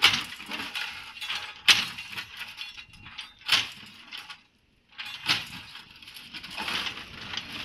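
Broken bricks and concrete crashing and clattering as a backhoe bucket breaks up demolition rubble. Four sharp crashes come about every second and a half, with a rattle of falling debris between them and a longer clatter near the end.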